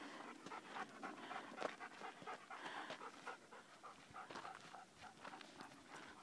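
A young dog panting faintly in quick, uneven breaths, winded from exercise.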